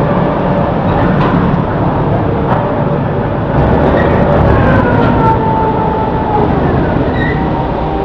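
Ship's gantry crane hoisting a load of newsprint paper reels: a loud, steady mechanical rumble that swells slightly about halfway through, with thin squeals gliding down in pitch in the middle.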